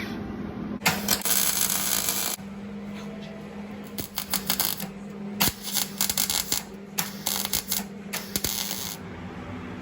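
Bursts of metallic clinking and rattling, like small metal parts or tools being handled, coming in several spells of a second or so each, over a steady low hum.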